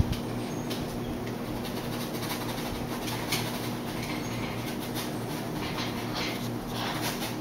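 Paintbrush scrubbing oil paint onto canvas in short, scratchy strokes, repeated several times from about three seconds in, over a steady machine hum.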